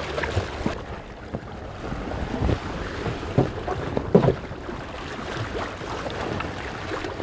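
Water splashing and slapping as a hammerhead shark thrashes its tail at the surface beside the boat, with a few sharper splashes near the middle. Under it runs the low sound of the boat's engine at idle and wind on the microphone.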